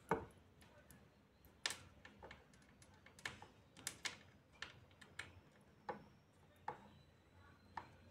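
Faint, irregular clicks and taps, about a dozen over eight seconds, from a fitness tracker's rubber strap being handled and fastened on a wrist.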